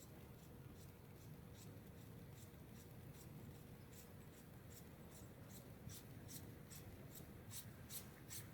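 Footsteps crunching and squeaking in snow at a steady walking pace, about two to three steps a second, faint at first and growing louder toward the end.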